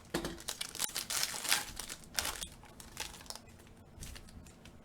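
Trading cards and a foil card-pack wrapper being handled: irregular crinkling and rustling with quick clicks and slides, busiest in the first half and thinning out near the end.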